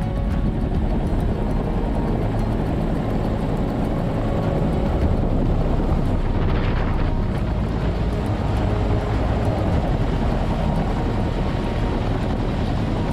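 Helicopter engine and main rotor running steadily while hovering low over water, heard from beneath the fuselage, with a swell of hiss about halfway through.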